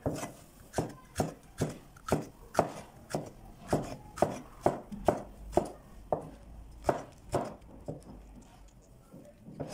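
Broad cleaver-style knife slicing a red onion into thin strips on a wooden cutting board: the blade knocks on the board about twice a second, stopping near the end.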